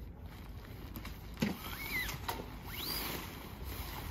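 Pitching a large canvas-style tent: poles and fabric being handled, with a knock about a second and a half in and two short gliding squeaks after it, over a steady low rumble of wind on the microphone.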